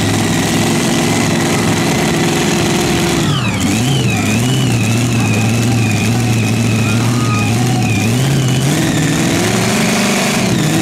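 A loud engine from a pulling vehicle running hard with a high whine over it. Its pitch drops sharply about three seconds in, holds steady, rises near nine seconds and falls again near the end.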